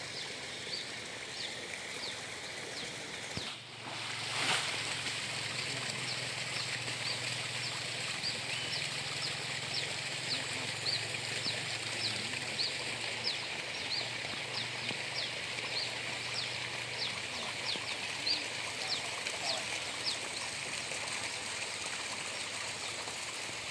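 Outdoor ambience of short, high, falling chirps repeated about twice a second over a steady high hiss, broken by a brief dropout and a click about four seconds in.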